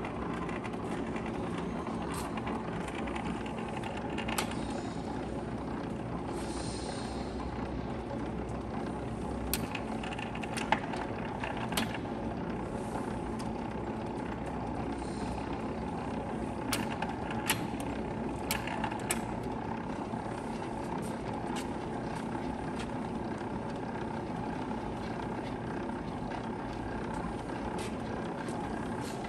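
LeBlond sliding-bed engine lathe running under power with its spindle and large four-jaw chuck turning: a steady mechanical running sound from the machine, with a few sharp clicks scattered through the middle.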